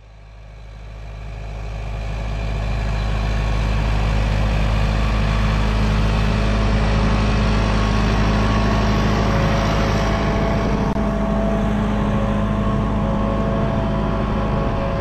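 Fendt 514 Profi tractor engine running steadily under load while pulling an eight-furrow plough through the soil. The sound fades up over the first few seconds and then holds level.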